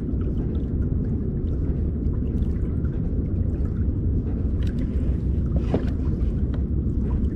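Steady low rumble of a Hobie Pro Angler 14 pedal kayak moving through the water while trolling, with light ticks above it and a brief sharper creak or knock just before six seconds in.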